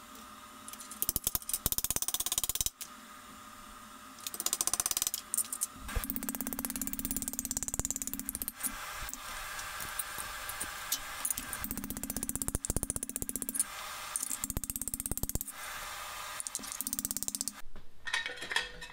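Steel plate being worked with metal-shop tools: repeated bursts of rapid mechanical clattering, each a second or two long, several with a steady low hum beneath.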